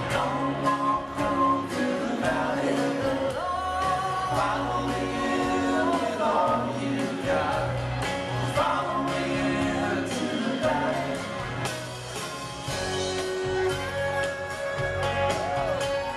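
Live band playing a song with a lead vocal over acoustic guitar, electric guitar, fiddle and drums, with a steady beat. Heard from among the audience.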